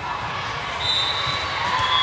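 Crowd of spectators cheering and shouting during a volleyball match, with a short high tone about a second in.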